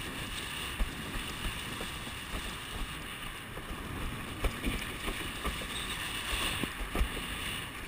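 Wind buffeting the microphone of a rig-mounted action camera over the steady rush of water past a windsurf board moving at speed, with a few short thuds as the board hits the chop.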